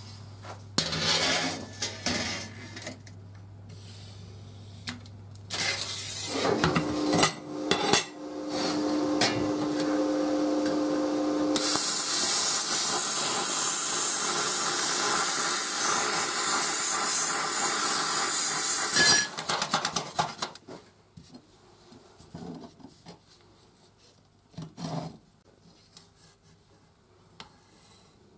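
Steel bar and plate clinking on a steel workbench, then a small hand-held grinder running with a steady whine and cutting into steel plate with a loud, even grinding hiss for about eight seconds. The cutting stops abruptly, and only faint scrapes and taps follow.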